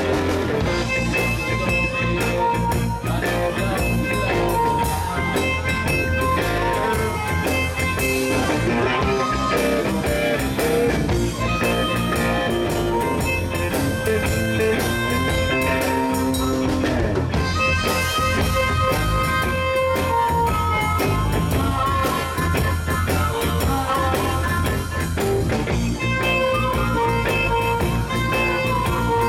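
Live blues band playing an instrumental passage: amplified harmonica held against a microphone, over electric guitar, bass guitar and drum kit.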